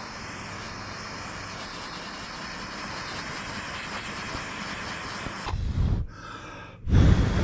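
Handheld gas torch burning with a steady hiss, followed by two short, loud low rumbles, about five and a half seconds in and again near the end.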